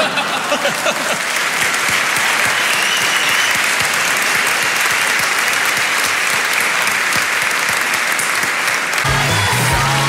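Large audience applauding steadily. Music with a low bass line comes in about nine seconds in.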